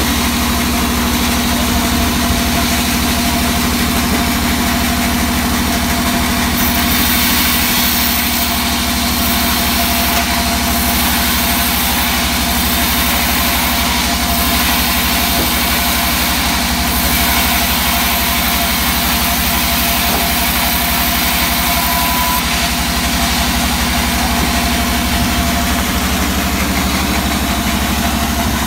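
Vertical band sawmill running steadily with a constant machine hum; from about a quarter of the way in until about three quarters through, its blade rips through a hard teak beam, adding a hissing cutting noise over the hum.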